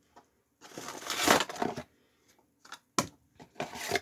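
Cardboard box and packaging crinkling and rustling by hand as a wrapped item is pulled out: a long rustle about a second in, then a few short crinkles near the end.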